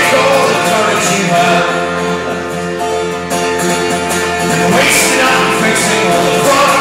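Folk-rock band playing live: strummed acoustic guitar and other instruments with singing, loud and continuous.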